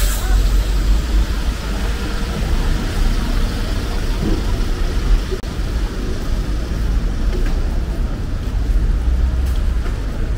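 Steady road traffic on a wet city avenue: a continuous low rumble of car and bus engines and tyres.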